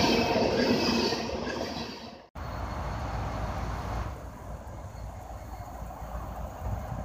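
Freight train of coal hopper cars rolling past close by, its wheel and rail noise fading off. The sound cuts off about two seconds in, giving way to a quieter low rumble.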